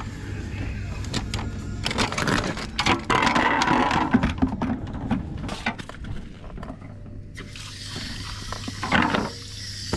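Irregular clinks, knocks and scrapes of metal tools and reel-mower parts being handled, with a longer scraping stretch about three seconds in.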